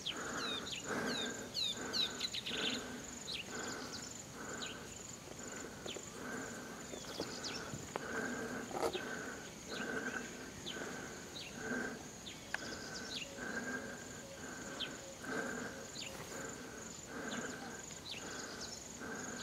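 Open tropical grassland ambience: insects droning steadily on one high note, with short falling bird chirps, most of them in the first few seconds. Under them a soft sound repeats about one and a half times a second.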